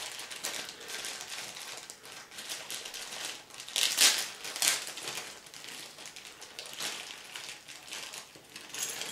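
Packaging of a small keychain being handled and opened, crinkling and rustling irregularly, with two louder crackles about four and five seconds in.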